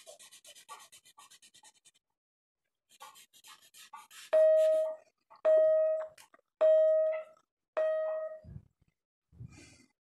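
A drawing stick scratching on paper in short quick strokes, then four loud identical electronic beeps about a second apart, each a steady tone lasting well under a second.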